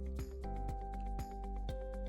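Background music with a steady beat, about four strikes a second, under held notes that change about half a second in.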